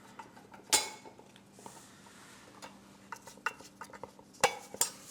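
Metal parts of a knight figure clinking and knocking together while being handled and assembled. The loudest clank comes about a second in, and two more come close together near the end, with lighter ticks between.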